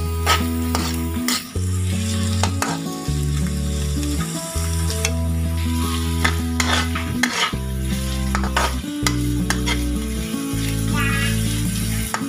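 Julienned carrots and ginger stir-frying in hot oil in a wok: a steady sizzle with repeated scrapes and clicks of the spatula turning them. Low held notes that shift every second or two sit underneath.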